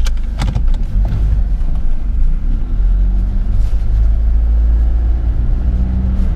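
The Mitsubishi Pajero's diesel engine running with a steady low rumble, with a few sharp clicks in the first second. The driver says the engine is taking throttle on its own and running rough.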